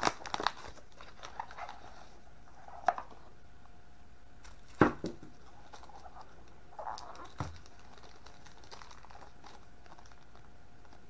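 Paper wrapping crinkling as it is pulled off a Mauser rifle bolt, then a few scattered light knocks, the sharpest about five seconds in, as the bolt and the wrapping are put down.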